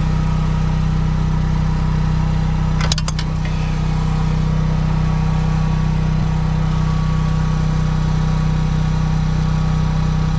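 Engine running steadily at a constant speed, with a brief cluster of clicks about three seconds in.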